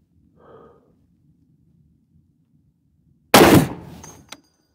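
One shot from a suppressed Barrett M107 .50 BMG rifle about three seconds in: a sudden loud report that dies away over about a second, followed by a short sharp click.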